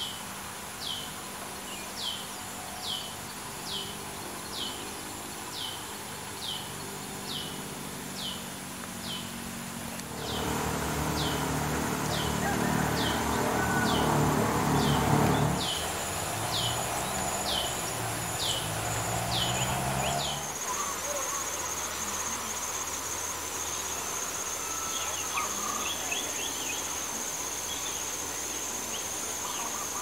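Rice-field ambience: insects shrill steadily, and a short falling chirp repeats about twice a second through the first two-thirds. In the middle a louder, low rumble rises in pitch before it fades out. The last third is a steady high insect shrill with a few faint bird chirps near the end.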